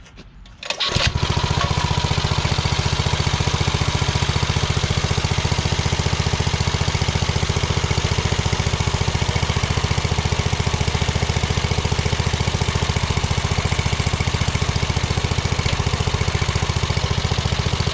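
Rebuilt Hisun 196cc single-cylinder four-stroke engine on a mini bike, on its first test start: it catches about a second in and then runs steadily.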